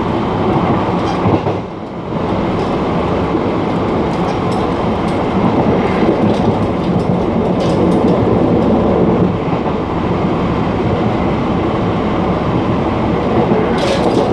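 Running noise of a Puyuma Express TEMU2000 tilting train heard in the gangway between two cars: a loud, steady rumble of wheels on rails with scattered light clicks, briefly dipping a little before two seconds in.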